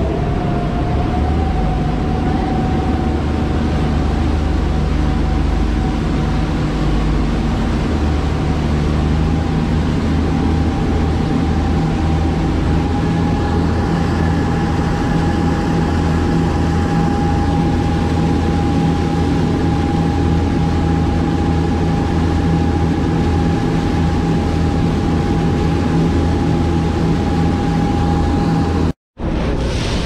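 Tour boat's engines running steadily under way, with a low hum, a steady whine and the rush of churning wake water. The whine rises slightly in the first second, and the sound cuts out abruptly about a second before the end.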